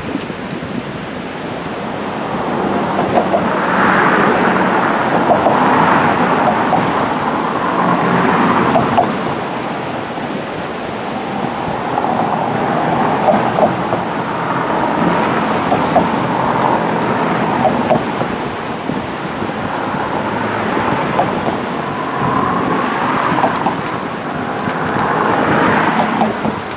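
An Amtrak Pacific Surfliner train approaching behind a Siemens Charger diesel locomotive, heard through steady wind and ocean surf. The noise swells and eases every few seconds.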